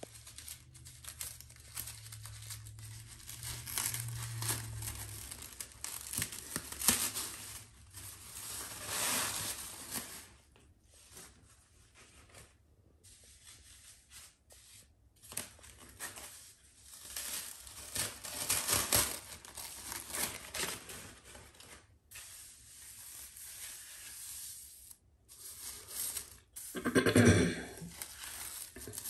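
Fabric hair wrap rustling in irregular bursts with short pauses as it is handled and unwound from the head. Near the end there is one brief, louder pitched sound.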